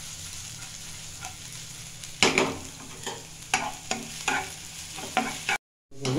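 Chopped garlic, ginger and green chilli sizzling in oil in a nonstick frying pan, with a spatula stirring and knocking against the pan in a run of sharp clacks from about two seconds in. The sound cuts out briefly near the end.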